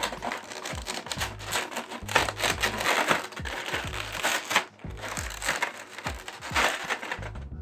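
Clear plastic blister trays crackling and crinkling as they are flexed and pulled apart by hand, a dense run of sharp plastic clicks, over background music with a low bass line.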